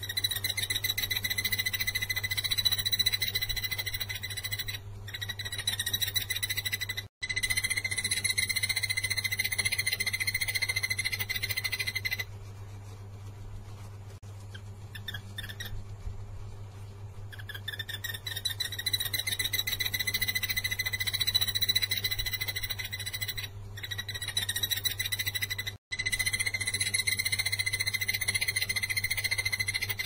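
Blue-eared barbet (takur tenggeret) calling: a fast run of identical notes on one steady pitch, kept up for several seconds at a time, with one pause of about five seconds in the middle. A steady low electrical hum runs underneath.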